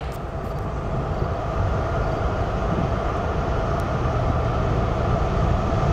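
Diesel locomotives of an approaching freight train rumbling in the distance, the sound steady and slowly growing louder.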